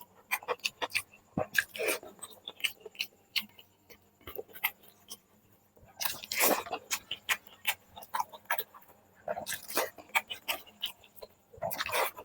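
Close-miked eating of chicken curry with rice: wet chewing and lip-smacking clicks, with four louder, longer crunchy bursts about 2, 6.5, 9.5 and 12 seconds in.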